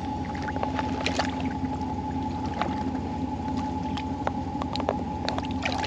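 A steady droning hum holding two constant pitches, with scattered sharp clicks and crunches over it.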